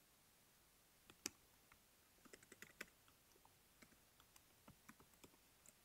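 Faint computer keyboard typing: single key clicks starting about a second in, a quick run of keystrokes around two to three seconds in, then slower scattered taps.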